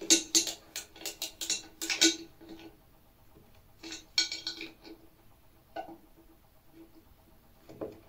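A steel screwdriver and forceps clicking and scraping against the plastic door-lock housing of a washing machine door as it is pried loose from the door frame's clips. A fast run of sharp clicks comes in the first couple of seconds, a shorter cluster about four seconds in, then a few single clicks.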